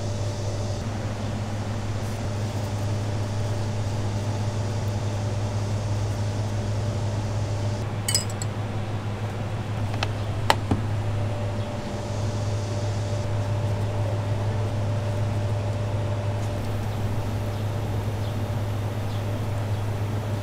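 Steady low hum of kitchen machinery such as an exhaust fan, with a ringing clink about eight seconds in and two sharp knocks a little later.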